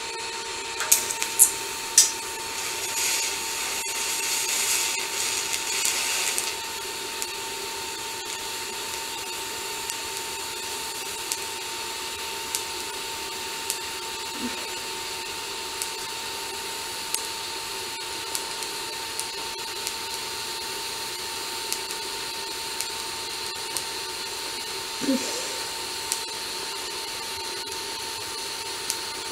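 TIG welding arc burning steadily on mild steel, a low hiss with a steady whine from the welding machine. It is louder and crackly for the first few seconds, then settles to an even sound with small ticks about once a second.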